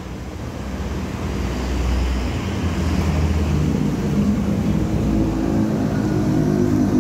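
A machine running with a low rumble, growing louder, its pitch climbing over the last few seconds.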